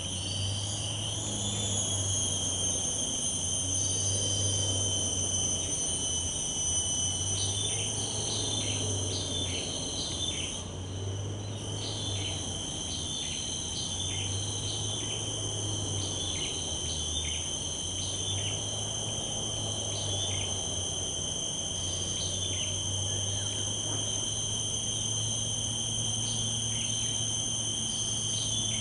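Mangrove forest insect chorus: several insects buzzing in steady high pitches at once. A short, sharp chirp repeats roughly once a second through most of it.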